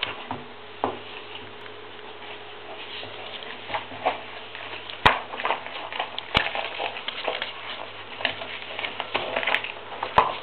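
Paint-filled adidas trainers squelching and crackling in irregular wet pops and clicks as they are handled and moved, with two sharper clicks about five and six seconds in.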